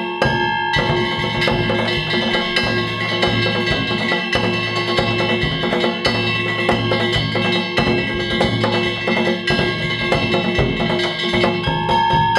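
Danjiri festival hayashi: taiko drum and kane hand gongs played in a fast, unbroken rhythm, with the metal gongs ringing over the drum strokes.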